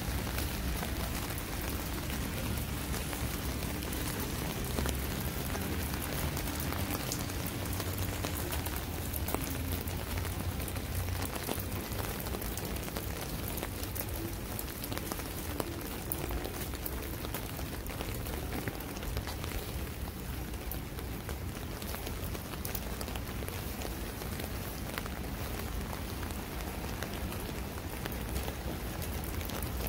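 Steady hiss of background noise with a low hum underneath and scattered faint ticks; the hum is stronger in the first half.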